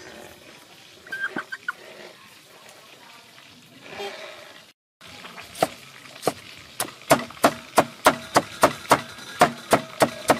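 Cleaver chopping tomatoes on a wooden chopping board: sharp knocks begin about halfway through, a few at first, then a steady run of about three a second. Before that there are only quiet background sounds with a few soft clicks.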